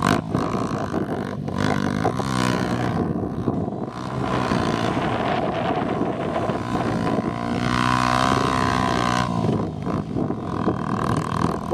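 Honda XR250 Tornado dirt bike's single-cylinder four-stroke engine revving up and down as it is ridden through loose sand. There are two clear rising surges, one a couple of seconds in and one about three-quarters of the way through.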